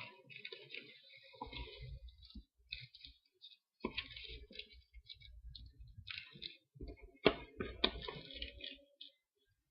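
Hands opening the packaging of a trading-card starter-deck box: irregular rustling and scraping with a few sharp clicks and knocks, the loudest about seven to eight seconds in.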